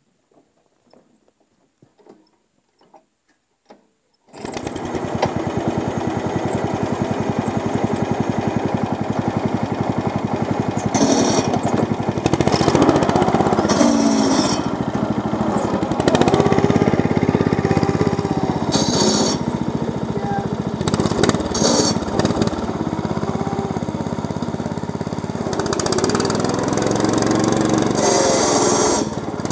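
Off-road Yazoo riding mower's engine comes in suddenly about four seconds in and then runs loudly, its revs rising and falling as the mower is driven, with short bursts of hiss and rattle. Before it starts there are only a few faint clicks.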